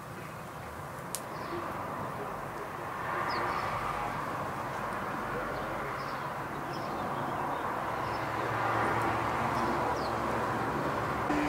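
Outdoor garden ambience: a steady background noise with short, high wild-bird chirps scattered through it, and one sharp click about a second in.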